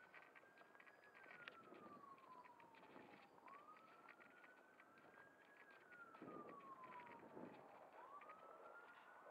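Faint emergency-vehicle siren wailing: its pitch sweeps up quickly, then falls slowly, in a cycle of about three and a half seconds. Light rustling of fabric against the microphone is heard under it.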